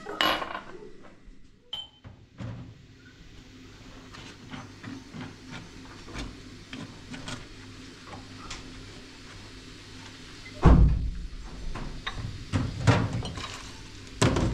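Scattered knocks and clatter of things being handled, with a short burst of noise at the start and a heavy thump about ten and a half seconds in.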